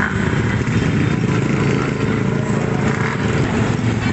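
Many scooters and small motorcycles passing in a steady stream, their engines running together in a continuous drone.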